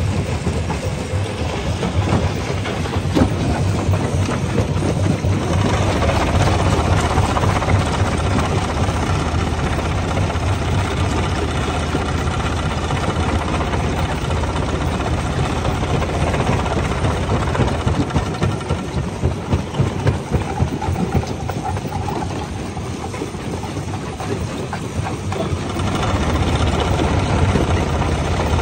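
Rock crusher breaking stones: rocks cracking and grinding in dense, irregular knocks over the machine's steady low hum.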